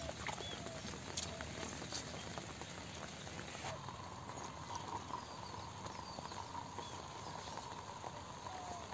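Outdoor field ambience: a steady hiss with scattered short bird chirps and light clicking footsteps and handling noises in wet mud. The background changes abruptly about four seconds in, where a faint steady hum joins.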